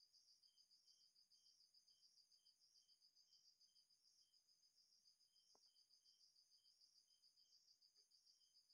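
Very faint crickets chirping in a steady, regular pulse, several chirps a second; otherwise near silence, with one faint tick about five and a half seconds in.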